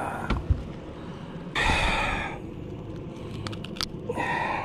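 A man breathing out heavily twice: a long sigh-like exhale about a second and a half in and a shorter one near the end, with a few light clicks between.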